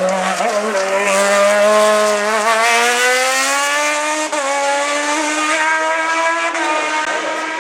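Hillclimb race car's engine under hard acceleration, its note climbing steadily for several seconds, with a brief break about four seconds in, then holding high.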